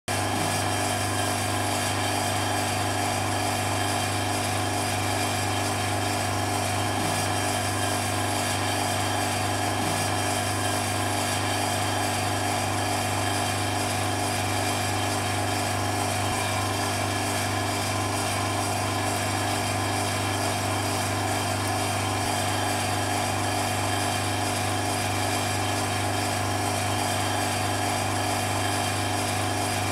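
Electric vacuum pump running steadily with a low hum while it draws down the vacuum chamber.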